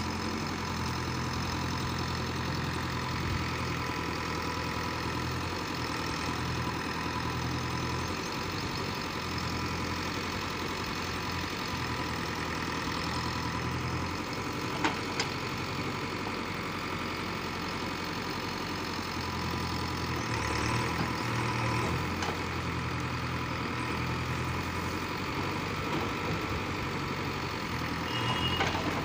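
JCB 3DX backhoe loader's diesel engine running steadily under load as the backhoe arm digs, getting a little louder around twenty seconds in and again near the end. Two short sharp knocks sound about fifteen seconds in.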